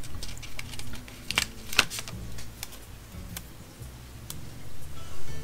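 Paper sticker sheet being handled as planner stickers are peeled off: a few light, sharp clicks and crackles, loudest around two seconds in.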